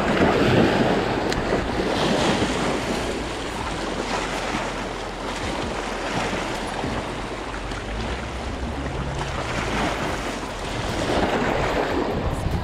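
Choppy reservoir water washing and splashing against riprap rocks, mixed with wind on the microphone; the rush swells and eases every few seconds.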